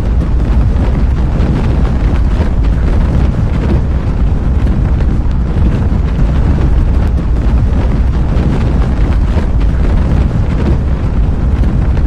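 Strong wind buffeting the microphone: a loud, steady rushing noise, heaviest in the low end.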